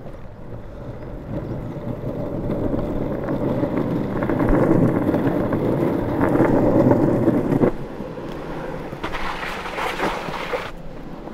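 Longboard wheels rolling over rough tarmac: a coarse rumble that builds as the board gathers speed and drops off suddenly about three-quarters of the way through. A brief, higher hiss follows near the end.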